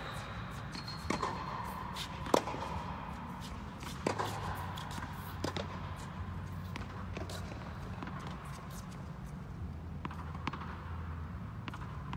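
Tennis balls being struck by a racket and bouncing on a hard court during a rally: irregular sharp pops every second or two, the loudest a little over two seconds in, ringing briefly in the large indoor hall over a steady low hum.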